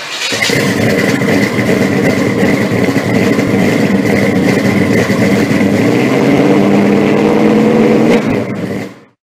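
A car engine running loud, its revs rising slightly near the end, with a steady high-pitched whine over it; it starts abruptly and cuts off suddenly about nine seconds in.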